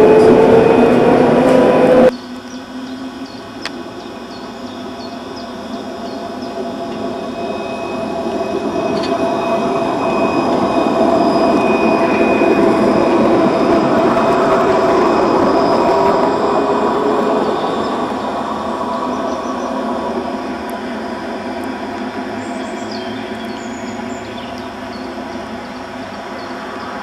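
Electric tram, at first a rising motor whine that cuts off suddenly about two seconds in. Then a tram passes with its traction motors whining in steady tones over wheel and rail noise, growing louder to a peak in the middle and slowly fading, with faint high wheel squeal near the end.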